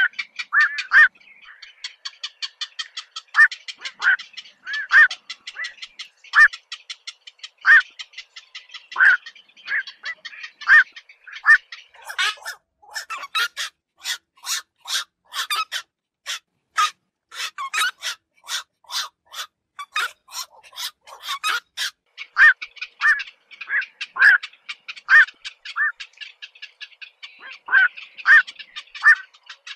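Black-crowned night herons calling: short harsh calls repeated every second or so, quickening into a dense run of rapid calls in the middle before slowing again.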